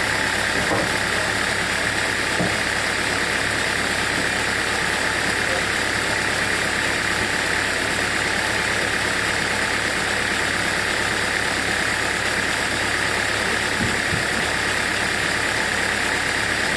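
Sawmill machinery running steadily, an even engine-like drone with a band of hiss that does not change or break.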